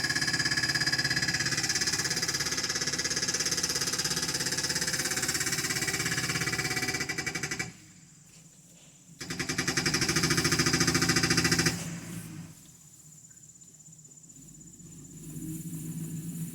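Mechanical fence post driver hammering a post with fast, even blows. It stops about seven and a half seconds in, starts again a second and a half later, and stops for good near the end.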